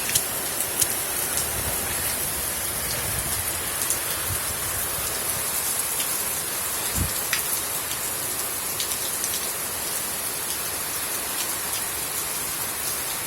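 Steady heavy rain from a tropical storm falling on surfaces, with scattered sharp drop ticks and a brief low thump about seven seconds in.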